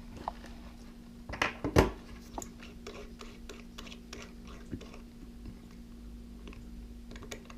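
Small clicks and scrapes of a wristwatch's screw-down case back being worked loose, with a sharper knock nearly two seconds in and a run of light ticks after it. A steady low hum sits underneath.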